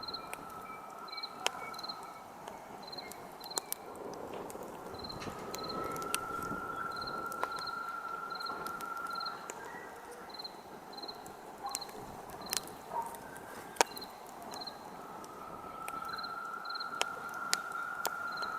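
Campfire crackling, with sharp pops of burning wood scattered throughout, over crickets chirping about twice a second. A steady high tone comes and goes in stretches of a few seconds.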